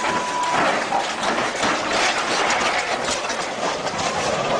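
Tracked armoured vehicle's steel tracks clanking and rattling steadily with heavy mechanical noise as it climbs onto a low-loader trailer.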